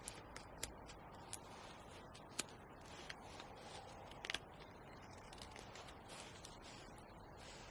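Faint, scattered sharp clicks and short scraping strokes over a low steady hiss, the sharpest about two and a half and four and a half seconds in.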